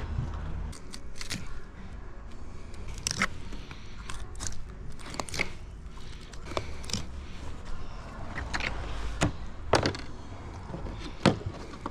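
Knife and hands filleting a large blue-eye trevalla on a plastic cutting board: scattered taps, knocks and scrapes of the blade and the fish against the board, the sharpest knocks near the end, over a steady low rumble.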